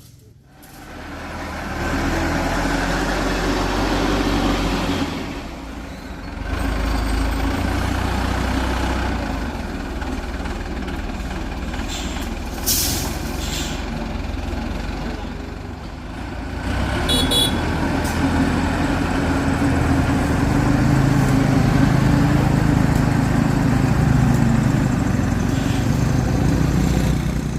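Heavy diesel engine of a construction machine working, its sound swelling and easing several times as the load changes, with a couple of short hissing bursts about halfway through.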